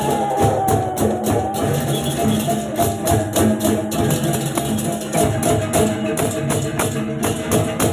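Balinese baleganjur gamelan playing a fast, driving rhythm: rapid clashing cymbal strokes over held gong tones and drums.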